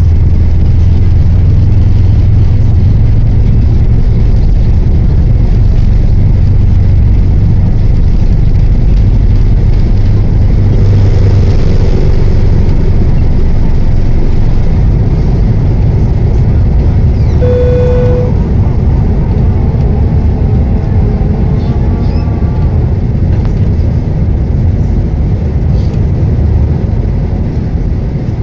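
Steady, loud cabin rumble of an Airbus A320 in flight: engine and airflow noise, deepest in the bass. A single short chime sounds about two-thirds of the way through.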